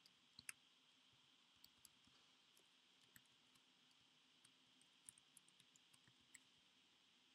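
Faint computer keyboard keystrokes and clicks, scattered, with a quick run of several about two-thirds of the way through, over a low steady hiss.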